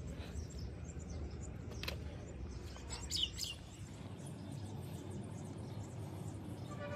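Quiet outdoor ambience: a steady low rumble with a few short, high bird chirps about two and three seconds in.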